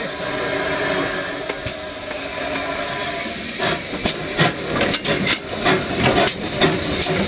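Former GWR 1600-class 0-6-0 pannier tank locomotive No. 1638 hissing steam at rest, then setting off: about three and a half seconds in, sharp exhaust beats begin, about two to three a second.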